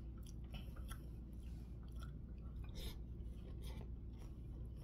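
Faint chewing of food, with a few soft clicks and rustles as food is picked up with the fingers.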